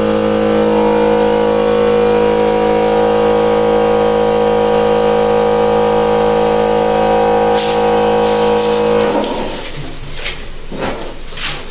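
Electric air compressor running steadily to fill its tank for a nail gun, then cutting off suddenly about nine seconds in. A few knocks and handling sounds follow.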